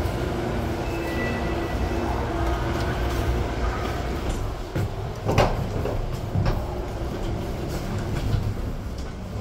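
Newark AirTrain car running along its guideway: a steady low rumble with a faint high whine about a second in and a sharp knock about five seconds in.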